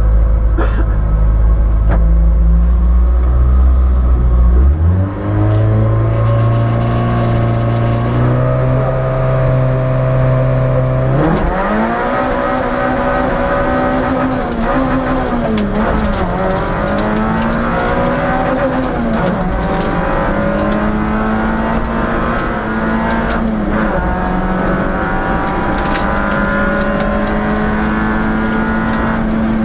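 Peugeot 106 S16 rally car's four-cylinder engine heard from inside the cabin: a low steady run for about five seconds, then revs held higher and steady, then about eleven seconds in the pitch climbs and drops again and again as the car accelerates hard and shifts through the gears.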